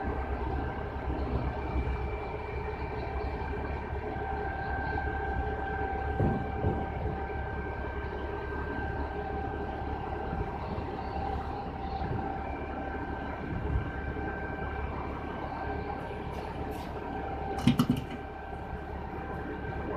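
A machine running steadily with a constant hum of several held tones, and a quick cluster of sharp metallic clicks or knocks about eighteen seconds in.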